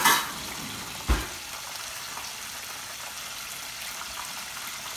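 Chicken wings deep-frying in a pot of hot oil, a steady sizzling hiss. In the first second or so there is a clatter and then a knock as kitchen tongs are fetched from a utensil drawer.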